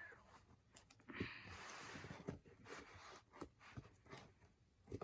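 Faint handling of cardboard: a soft rustle about a second in, then scattered light taps and clicks.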